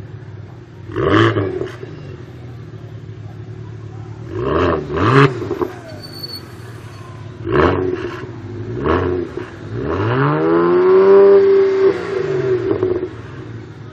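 Tuned, decatted BMW 1M Coupe's twin-turbo straight-six idling and revved in five short throttle blips. Near the end comes a longer rev that rises, holds for about three seconds and falls back to idle.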